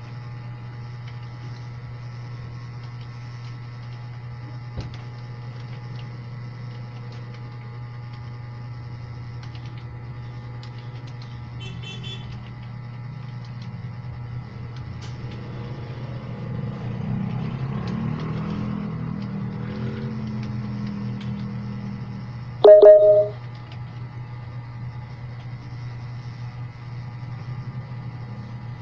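Steady low hum with faint steady tones, swelling with a rushing noise for several seconds in the middle, then a short loud beep about 23 seconds in.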